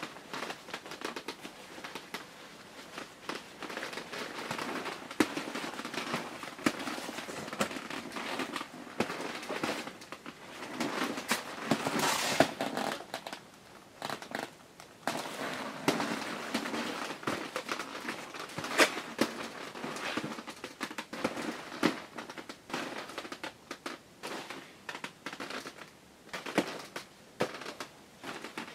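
Shiny nylon John Deere snowmobile suit rustling and swishing as the wearer moves, the slick fabric rubbing on itself in irregular crinkling bursts, loudest about halfway through.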